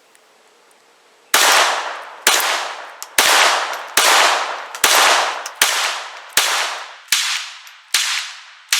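A .22 LR semi-automatic pistol firing Federal 40-grain bulk ammunition: ten shots at an even pace of about one every 0.8 s, beginning about a second in, each with a long echoing tail. The string runs through a full ten-round magazine without a pause, a sign the pistol is cycling reliably.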